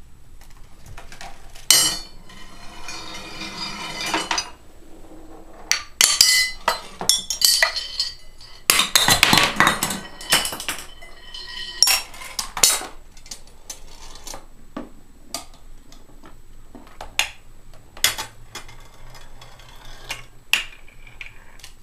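A homemade chain-reaction machine running, with balls and marbles rolling through cardboard tubes and along metal rails. A rolling rush is heard from about two seconds in, and a louder one near the middle. Throughout, hard knocks, clacks and clinks sound as pieces strike, drop and topple one after another.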